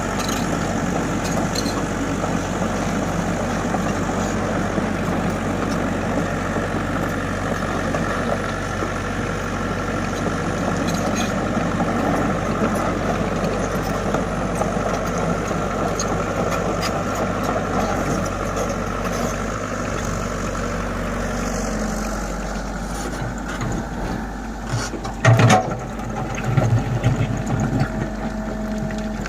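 Diesel engine of a Komatsu hydraulic excavator running with a steady drone while it digs sand. It eases off near the end, and a few loud knocks and scrapes come about 25 seconds in.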